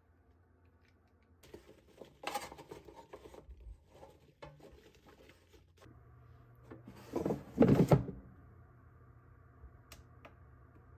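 Kitchen handling sounds: scattered light knocks and clatter of utensils and containers, with a louder clatter about seven seconds in.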